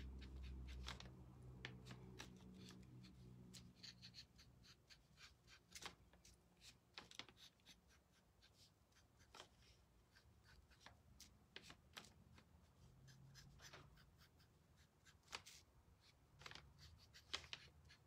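Faint, irregular ticks and scratches of a small paintbrush dabbing and dragging paint along the bars of a thin laser-cut wooden chicken-wire panel.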